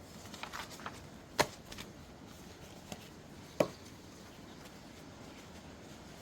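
Light taps and paper handling at a craft table, with two sharp knocks about two seconds apart of something set down or tapped on the tabletop. A steady hiss of rain runs underneath.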